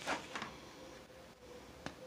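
Faint rustle of a large diamond painting canvas's paper cover sheet being handled, with a couple of light ticks, one of them sharp near the end.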